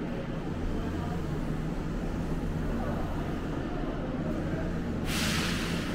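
Ambience inside a railway station corridor: a steady low hum, with a sudden loud burst of hissing, like compressed air being let out, about five seconds in and lasting under a second.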